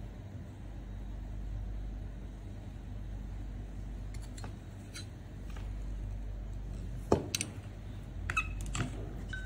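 Steady low hum, with a sharp click about seven seconds in and a few lighter clicks and taps of tools being handled on the bench near the end.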